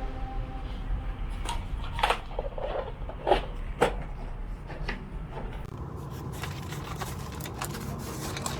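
Handling and tool noises: a few separate sharp knocks and clacks in the first half, then a run of small rapid clicks, over a low steady hum.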